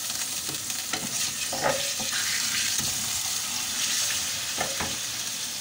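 Ground pork sizzling in hot oil in a nonstick frying pan, with a wooden spatula scraping and pushing the meat across the pan in several short strokes over a steady sizzle.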